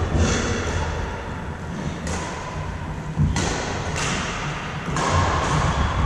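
Badminton rackets hitting a shuttlecock: a handful of sharp hits, roughly a second or so apart, over low thuds of footwork on the wooden court floor of a large sports hall.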